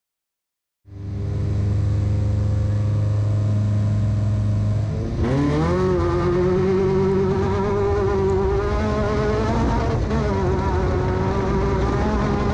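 A Class 10 desert race car's engine, heard from the car. It comes in about a second in, running steadily at a low pitch. About five seconds in it revs up as the car pulls away, then holds a higher, slightly wavering pitch while driving on a dirt road.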